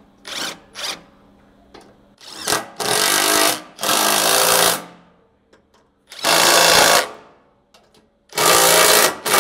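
Cordless impact driver with a 12 mm socket tightening skid plate bolts, hammering in short blips and then in four runs of about a second each as each bolt is run down and snugged.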